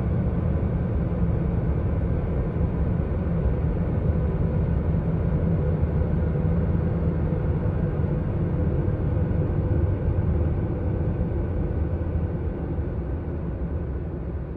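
Steady low rumbling roar with a hiss above it, one of the space sound recordings, fading out near the end.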